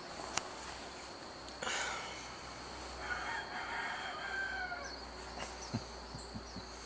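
Rooster crowing once, a single drawn-out crow starting about three seconds in and lasting under two seconds, over a steady high insect trill.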